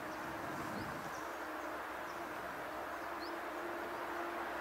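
Steady droning tone with a fainter, higher overtone over a low hiss. Birds give several short, high chirps.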